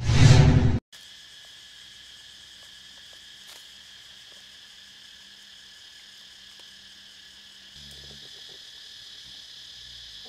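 A short, loud logo sound effect, then a steady, fairly faint chirring of insects, several even high tones, with a few faint ticks.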